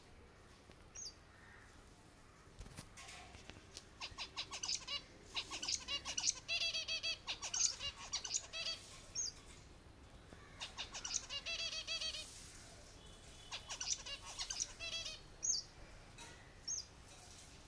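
Zebra finches chirping in three bouts of fast, buzzy, repeated notes, with a few short, high, falling chirps in between.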